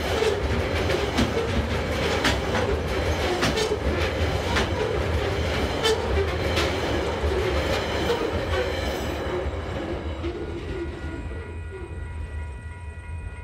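Coal hopper wagons of a freight train rolling past on steel wheels: a steady rumble broken by irregular clanks and clacks over the rail joints. The sound fades away near the end as the last wagons pass.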